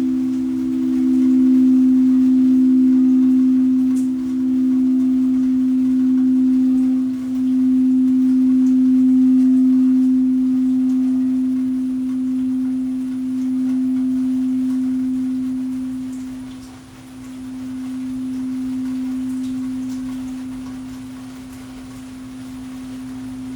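Singing bowl giving a long sustained ring: a low steady hum with a second tone a little above it. It swells and fades in slow waves, dipping lower near the end.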